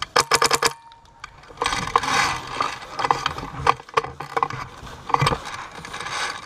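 A gun fires a rapid burst of about eight shots right at the start. Rustling movement follows, with scattered single sharp pops of further shots.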